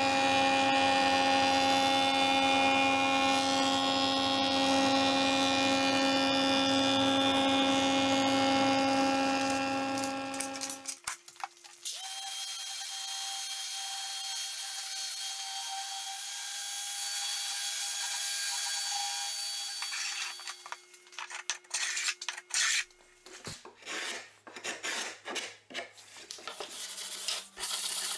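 A jointer-type woodworking machine runs with a steady whine for about ten seconds, then stops. A random orbital sander then sands an oak board with an even hum for several seconds, and after it cuts out, a hand sanding block scrubs the wood in short, uneven strokes.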